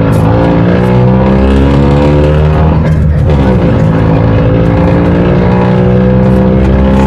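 Beccar Urbus city bus engine running loud under power, its pitch climbing gently, dropping briefly about three seconds in, then climbing again.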